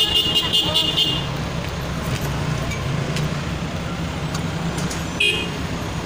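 Backhoe loader's diesel engine running steadily while it carries a loaded front bucket. A shrill high-pitched toot sounds over it for about the first second and a half, and again briefly near the end.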